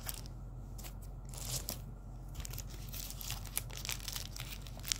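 Crinkly wrapper of a chocolate bar being torn open and handled: a run of sharp crackles, sparse at first and coming thick and fast from about halfway through, over a low steady hum.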